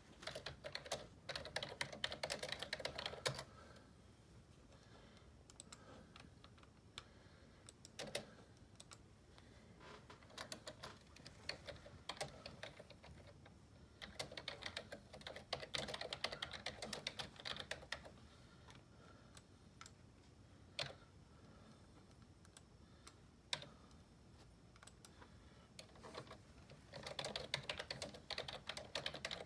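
Typing on a Dell computer keyboard: several runs of rapid key clicks a few seconds long, separated by pauses with only a few single keystrokes.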